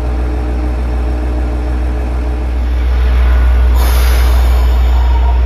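A diesel railcar's engine idling at a station platform: a steady low drone with a layered hum over it. A brief hiss comes about four seconds in.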